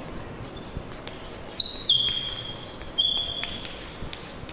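Writing on a board: light taps, and about three short, high squeaks of the writing tip dragging. The longest squeak comes about two seconds in.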